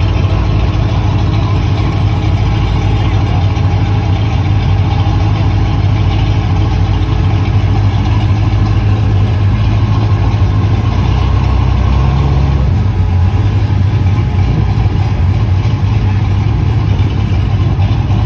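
Chevy car's engine and exhaust running with a steady deep drone, the low note shifting briefly around the middle.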